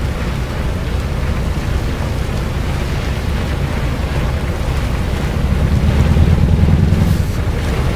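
A train ploughing through deep snow: a steady, heavy rushing rumble as the thrown snow blasts past, with wind buffeting on the microphone. It grows louder about six seconds in.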